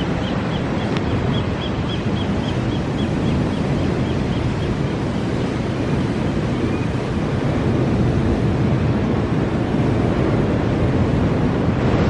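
Wind buffeting the microphone over the steady wash of ocean surf. During the first four or five seconds there is a faint high chirping, about four chirps a second.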